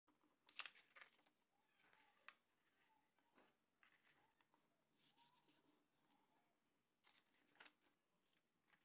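Faint rustling and a few light taps of a sheet of card paper being handled on a table, folded in half and its fold pressed flat by hand.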